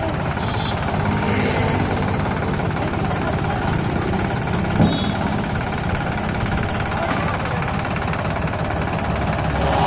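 Sonalika DI-47 RX tractor's diesel engine running steadily at low speed while hauling a loaded trolley, with a single short sharp knock about halfway through.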